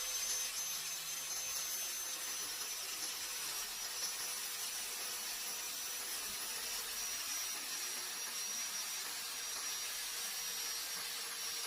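Power cutting tool running steadily as it cuts through an acrylic sheet: a high, even motor whine over a hissing cutting noise.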